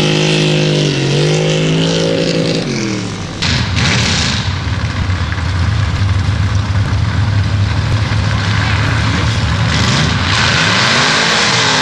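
Sand drag truck engines. One revs up and down for the first few seconds, then after an abrupt change about three and a half seconds in, engines hold a loud, steady low drone. Near the end the pitch starts rising as they rev up again.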